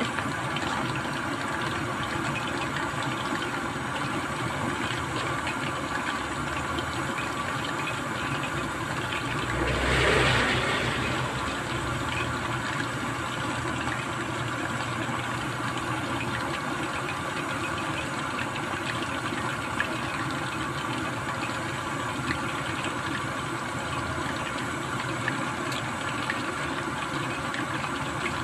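Breaded chicken fillets deep-frying in a stainless pot of hot oil: a steady sizzling crackle, with a louder swell lasting about a second about ten seconds in.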